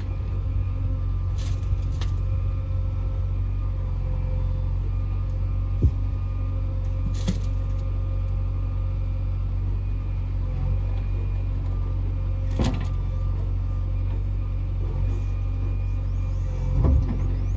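Heavy diesel engine running steadily at a constant speed, with a few short sharp knocks scattered through, the loudest about six seconds in and another near the end.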